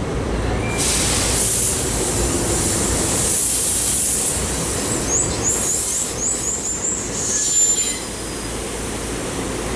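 SEPTA Silverliner IV electric multiple-unit train pulling into a station platform and braking to a stop: a falling whine as it slows, a high hiss, and short high-pitched wheel squeals in the last seconds before it halts.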